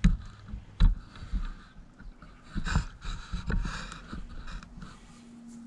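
Handling noise from a tripod-mounted camera being moved: scattered soft knocks and thumps with rustling, the strongest about a second in and near the middle.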